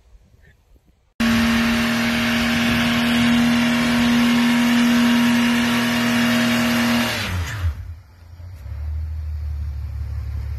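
Ford AU Falcon doing a burnout: the engine starts suddenly about a second in and holds steady high revs with the rear wheels spinning. About seven seconds in the revs drop and it carries on running at low revs.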